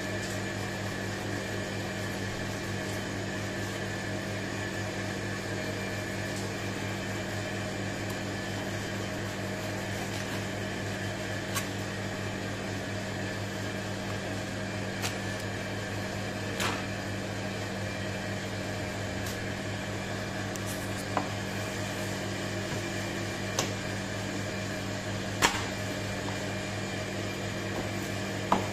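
Steady machine hum. A knife and fish are handled on a plastic cutting board, giving a handful of sharp knocks and clicks, most in the second half.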